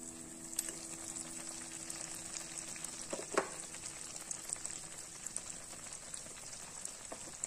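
A penyaram batter fritter deep-frying in hot oil in a wok: steady crackling sizzle with scattered small pops, and one sharper click about three seconds in.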